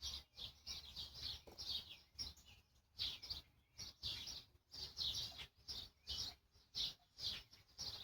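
A small bird chirping over and over in quick short chirps, about three a second, over a faint low hum.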